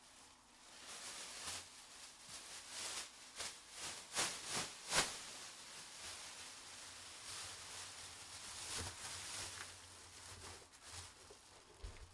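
Rustling and handling noise close to the microphone, uneven in loudness, with a few sharp clicks in the middle, the loudest about five seconds in.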